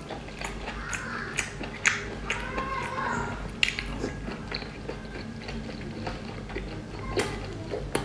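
Close-miked eating sounds: a person chewing and biting food, with scattered sharp wet clicks and smacks of the mouth.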